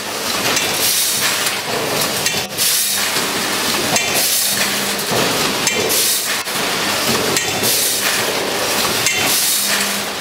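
Vertical form-fill-seal packing machine running, with a steady hiss that swells about every two seconds and short clinks and clicks from its moving parts as it makes and seals bags.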